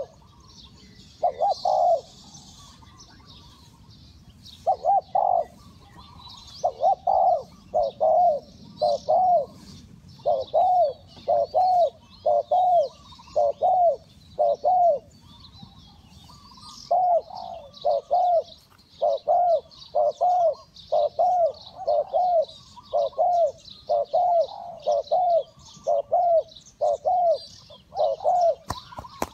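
Spotted dove cooing over and over in short groups of two or three low coos, with a pause about halfway through. Small birds chirp faintly higher up.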